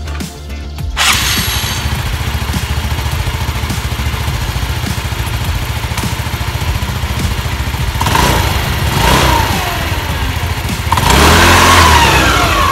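Yamaha Fino scooter's single-cylinder four-stroke engine starts about a second in and idles with an even pulse, then is revved in two short blips and a longer, louder rev near the end, each falling back to idle. It runs with the CVT cover off and the rear wheel spinning on the centre stand, a test run after fitting new fly balls and a pulley washer.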